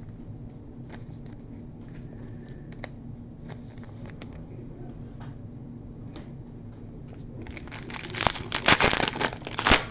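A few faint clicks over a low steady hum, then about seven and a half seconds in a loud burst of crinkling and tearing as a trading-card pack's foil wrapper is ripped open.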